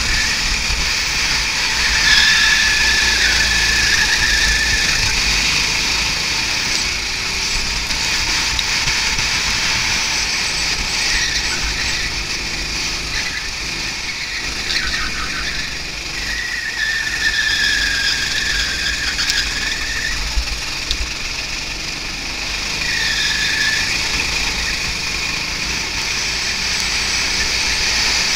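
Onboard sound of a go-kart lapping at speed: engine and wind noise on the kart-mounted camera, with the tyres squealing through the corners in four spells of one to three seconds each.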